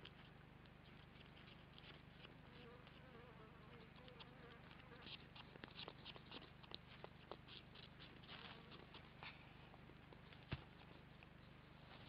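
Faint rustling and crackling of dry nest litter as kākāpō shift about in the nest, heard as scattered soft ticks through the middle, with one sharper click near the end, over a steady low hum.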